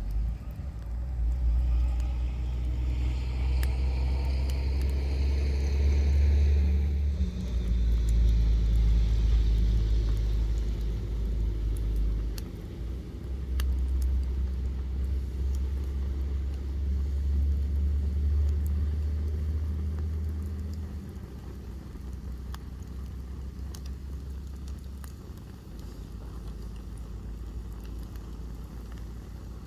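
Burning firewood crackling with scattered sharp pops, under a loud low rumble that swells and drops off in long stretches. A whoosh that falls in pitch passes over the first several seconds.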